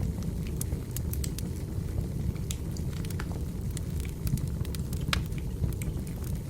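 Wood fire burning: irregular sharp crackles and pops of firewood over a steady low rumble of flame.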